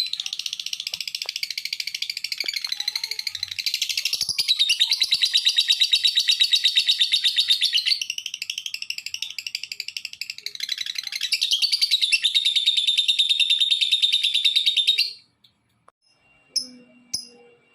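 Lovebird singing a long, unbroken run of rapid chattering trills for about fifteen seconds, stopping abruptly, then giving two short chirps near the end. This is the long 'gacor' song used as bait to set other lovebirds singing.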